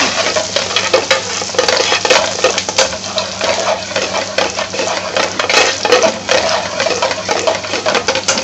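Chopped garlic sizzling and crackling in hot oil in a metal frying pan while a metal spoon stirs it, with irregular clicks of spoon against pan. The sizzle eases off a little toward the end.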